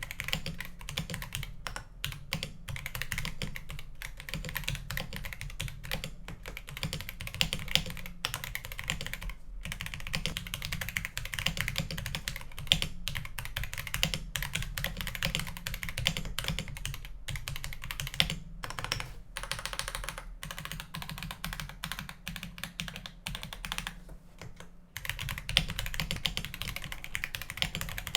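Steady typing on a Rama Works U80A mechanical keyboard fitted with stock Kailh Box Cream switches, all-POM switches in a POM plate, under XMI Classic Beige keycaps. Keystrokes are rapid and continuous, with a few brief pauses; the longest comes about three quarters of the way through.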